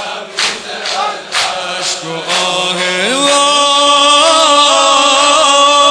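Shia mourning lament (noha) chanted in Persian. Rhythmic strikes come about twice a second for the first couple of seconds, then a long held note starts about three seconds in.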